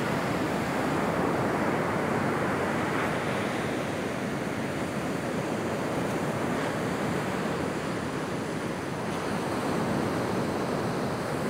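Ocean surf breaking on a sandy beach, a steady wash of waves that swells and eases, with wind blowing on the microphone.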